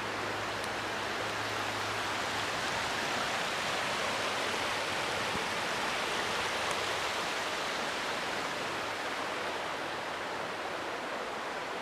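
Mountain stream rushing steadily, an even wash of flowing water.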